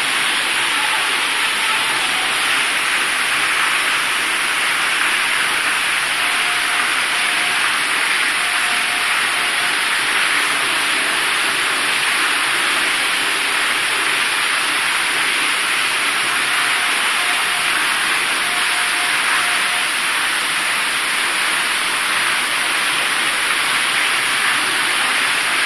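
Heavy rain pouring down: a steady, loud hiss of water.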